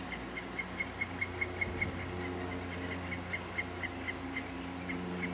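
Outdoor ambience: a steady low machine hum, with a quick run of short high chirps repeating about five times a second and pausing now and then.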